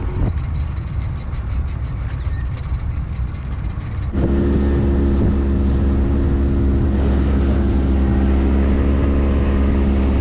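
A fishing boat's outboard motor: for the first few seconds a low rumble with wind and water, then, about four seconds in, the boat under way with the motor running steadily at speed and wind rushing past.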